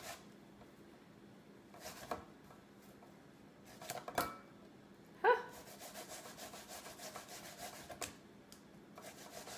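Asian pear being grated on a metal box grater: soft rasping strokes of the pear flesh against the grater teeth, with a few louder scrapes and a run of quicker strokes in the second half.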